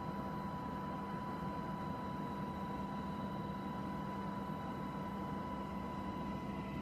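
Steady in-flight cabin noise of a passenger aircraft: a constant engine drone and rumble with a steady high whine running through it.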